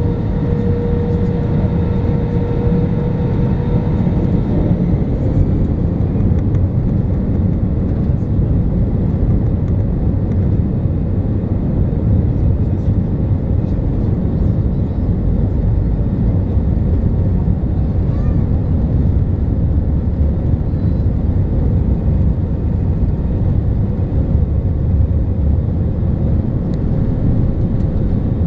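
Airbus A320 cabin noise while taxiing: a steady, low rumble from the jet engines at low thrust and the rolling undercarriage. A steady whine heard in the first few seconds fades away.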